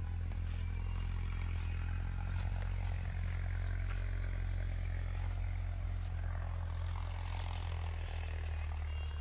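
A motor running steadily, a low even hum that does not change.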